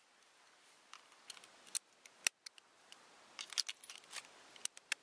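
Bolt-action rifle being handled: a string of sharp metallic clicks as the bolt is worked to chamber the next round, the loudest a little over two seconds in.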